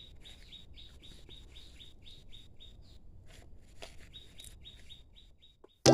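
A bird calling a long run of short, high chirps, about four or five a second, thinning out after about three seconds.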